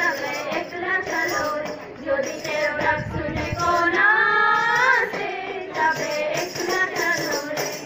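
High voices singing a song, with long held notes that slide up between pitches.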